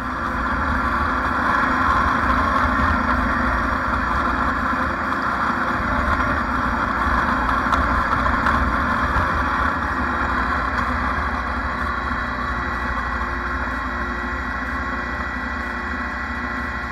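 Small petrol engine of lawn equipment running at a steady speed, with a steady low hum beneath.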